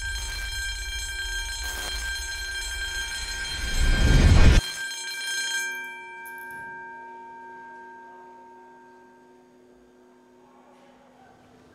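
A sustained, many-toned drone over a deep rumble swells to a loud peak and cuts off sharply about four and a half seconds in. A ringing tone is left that fades away over the next several seconds.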